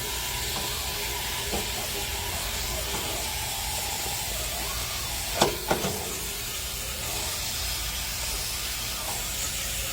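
Steady hiss of a garden hose spraying water over the outdoor AC condenser unit, washing it, with two short knocks about five and a half seconds in.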